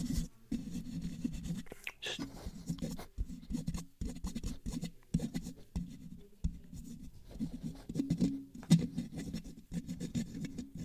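Fingers scratching and rubbing directly on a microphone in quick, irregular strokes, making a close, low scraping noise.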